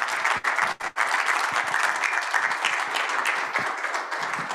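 Audience applauding, a dense patter of many hands clapping that eases slightly toward the end.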